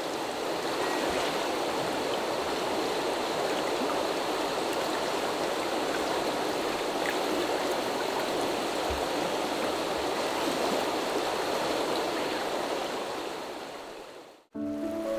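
A shallow river flows steadily over stones with an even rushing sound, fading out near the end.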